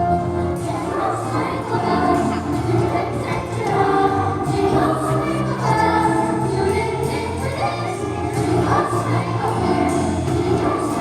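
A choir singing in several parts, sustained notes moving together, at a sound check.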